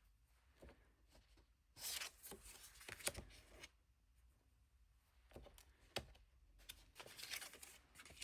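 Tarot cards being handled: soft paper rustling and sliding in two short spells, with a few light taps.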